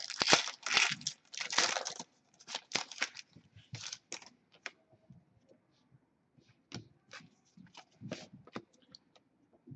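A foil trading-card pack torn open with loud crinkling, then a run of short flicks and taps as the cards are thumbed through one by one.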